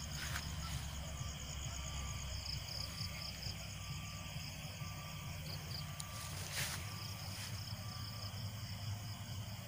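Night insects such as crickets chirping in a steady, fast-pulsing high trill, with a lower short note repeating about once a second. A few brief rustles of leaves or footsteps come through, one clearer around six and a half seconds in.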